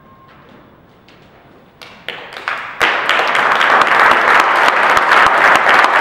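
Audience applause: the music's last held note dies away, a few scattered claps start about two seconds in, and about three seconds in the whole audience breaks into loud, sustained clapping.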